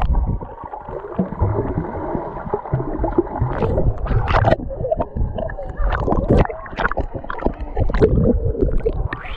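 Pool water gurgling and splashing around a camera dipping in and out of the water: muffled underwater bubbling broken by sudden splashes.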